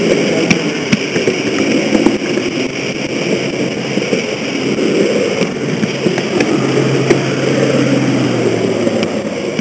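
H0-scale model train running, heard close up from a camera riding on it: a steady mechanical rumble of the motor, gearing and wheels on the track, with a few sharp clicks. A low hum joins in from about six and a half seconds in.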